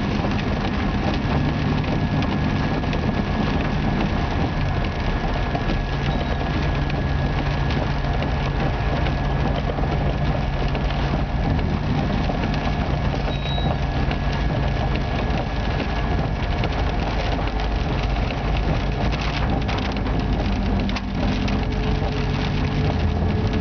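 Heavy rain pelting the vehicle's windshield and roof in a dense, crackling patter, over the steady drone of the pickup's engine.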